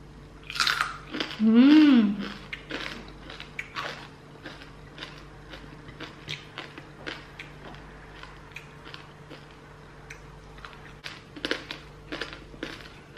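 Close-up sounds of roast pork skin being bitten and chewed, a scatter of short wet clicks and crunches throughout. About a second and a half in comes a loud hummed "mmm" that rises and falls in pitch.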